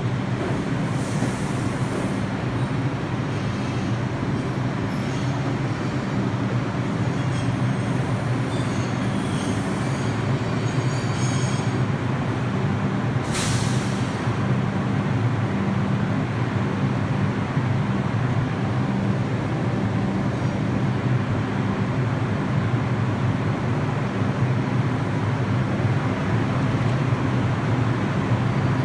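New York City subway train running steadily, with a short hiss of air about halfway through.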